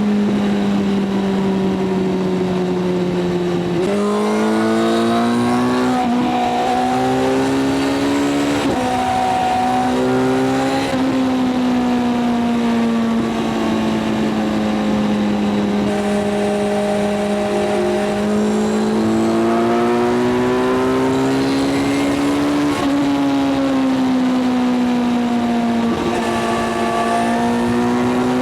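Kawasaki inline-four motorcycle engine at cruising speed, its pitch mostly steady with gentle rises and falls as the throttle changes and a few sudden steps in pitch.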